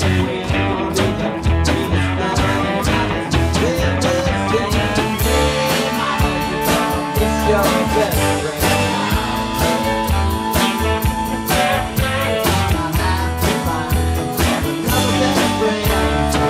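Live band playing an instrumental break with a steady beat: pedal steel guitar, electric and acoustic guitars, bass, keyboard and drum kit, with sliding lead lines over the rhythm.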